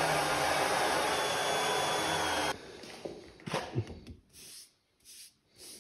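A motor on the router machine's carriage running steadily with a fan-like noise, then cutting off abruptly about two and a half seconds in. A few faint knocks follow.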